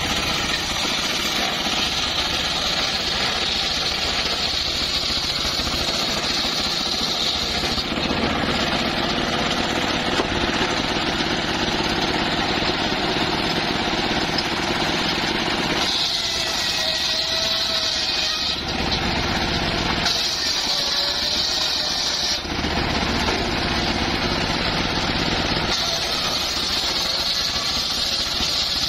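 Homemade circular sawmill rig running steadily, its blade cutting small timber; a higher-pitched cutting sound starts and stops several times as pieces pass through.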